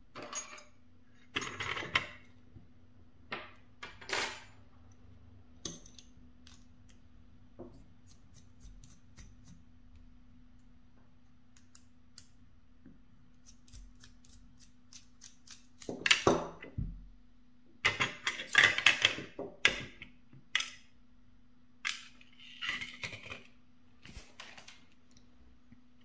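Metal clicks, scrapes and rattles of a brass lock cylinder being handled and taken apart with a small screwdriver, partly picked up through a contact mic on the lock. The clatter comes in clusters, busiest in the second half, over a faint steady hum.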